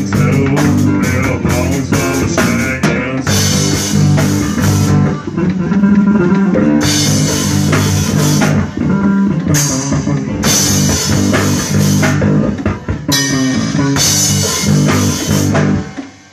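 Live rock band playing an instrumental passage: acoustic guitar, a second guitar and a drum kit with repeated cymbal crashes. The playing stops abruptly just at the end.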